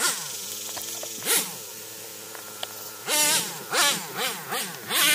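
Traxxas T-Maxx 3.3 nitro RC truck's small two-stroke glow engine running steadily at a distance, then blipped through several quick revs, rising and falling, in the last two seconds.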